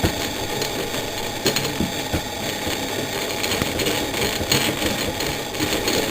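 Small electric screwdriver with a size 10 Torx bit running steadily as it backs a screw out of a car radio's fascia panel, with a few sharp clicks along the way.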